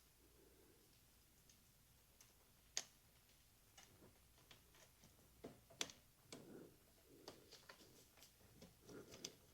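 Faint, scattered metal clicks and ticks of a bicycle chain tool being fitted against a chain, sparse at first and more frequent in the second half.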